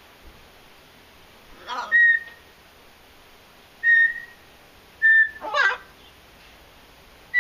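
Blue-fronted Amazon parrot whistling three short, flat whistles on one pitch, with a harsh rasping squawk just before the first and another just after the third.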